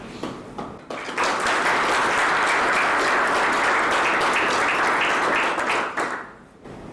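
Audience applauding at the end of a talk: a few scattered claps, then steady applause from many hands for about five seconds that dies away near the end.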